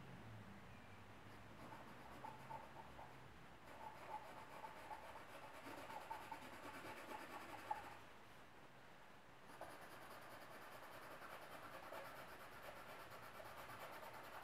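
Faint scratching of a charcoal pencil shading on drawing paper, in irregular strokes that ease off briefly about eight seconds in.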